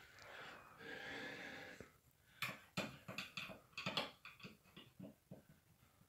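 A man's wheezing breath for about two seconds, then a quick, irregular run of light knocks and clanks from a metal folding chair as he climbs onto it.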